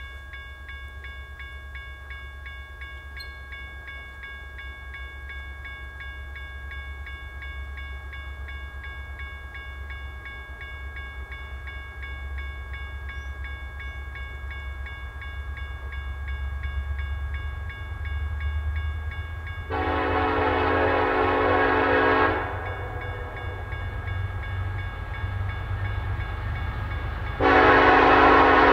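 EMD SD70ACe diesel locomotive with its 16-cylinder EMD 710 engine approaching with a train of tank cars: its low engine rumble grows steadily louder while a bell rings steadily. The air horn sounds two long blasts, one about twenty seconds in and another near the end.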